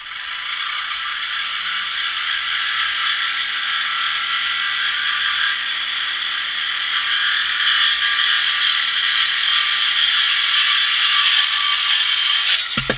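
Corded reciprocating saw cutting through the steel exhaust pipe of a 2013 Dodge Charger, a steady loud metal-cutting noise that stops abruptly near the end as the pipe is cut through to remove the muffler.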